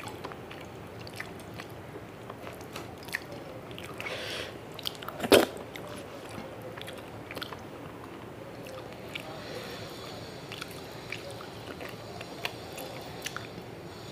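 Close-miked chewing and wet mouth sounds of someone eating rice with fish curry, with soft squelches from fingers mixing rice into the curry and many small clicks. One much louder sharp smack comes about five seconds in.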